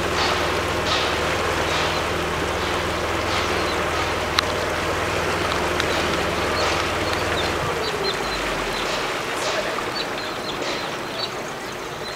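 A boat's motor running steadily, then cutting out about eight seconds in, over water sloshing and lapping at about one splash a second. In the second half short high bird chirps come through.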